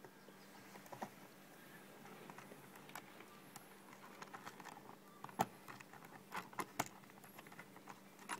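Small screws being driven by hand with a screwdriver into a metal clamp on a hollow plastic sign letter: faint scraping and light clicks, with a few sharper ticks about two-thirds of the way through.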